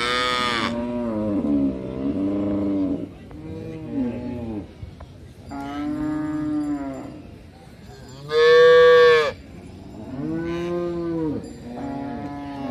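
Cattle mooing in a string of calls, one every second or two. The loudest and highest-pitched moo comes about eight and a half seconds in.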